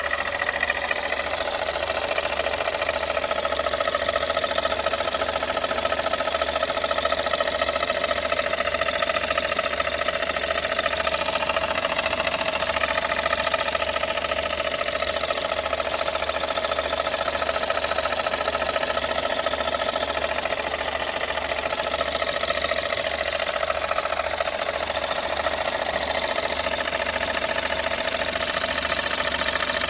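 Volkswagen 1.4 TSI CAXA turbocharged four-cylinder petrol engine running steadily with a foreign knock mixed with rubbing and grinding, a new noise the owner has noticed at 125,000 km.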